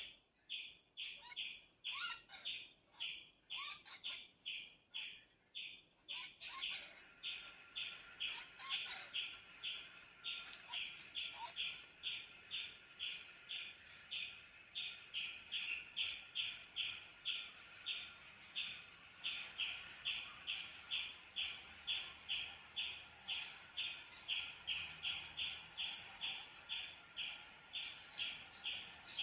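A squirrel calling, a harsh chip repeated steadily about twice a second. Fainter bird calls come and go in the first few seconds.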